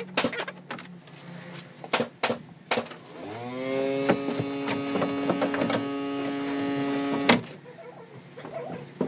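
Sharp plastic clicks and knocks as the scooter's front cowl panels are handled and pried, then a small electric motor spins up quickly, runs steadily for about four seconds and stops abruptly with a click.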